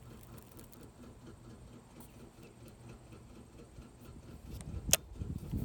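Faint light ticking from an Abu Garcia Black Max baitcasting reel being handled as its line is freed after a backlash, with one sharp click about five seconds in.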